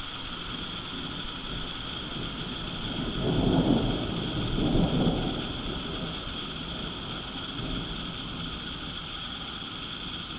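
Thunder rumbling about three seconds in, swelling twice over some two seconds before fading back into a steady background hiss.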